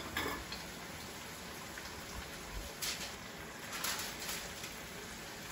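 Flounder fillets frying in avocado oil in a skillet: a steady sizzle with a few brief crackles.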